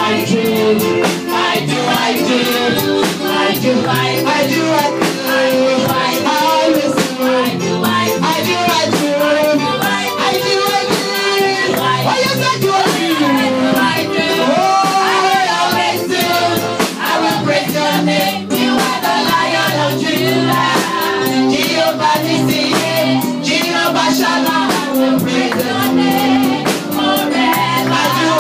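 Live church praise music: a band with a drum kit playing a steady beat while voices sing over it.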